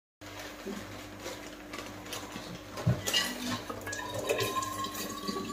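Plastic packet rustling and small knocks and clicks of kitchen items being handled, with one louder knock about three seconds in, over a steady low hum.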